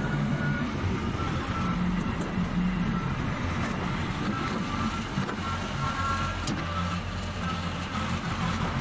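Kubota B2261 compact tractor's three-cylinder diesel engine running steadily as the tractor drives across the dug ground.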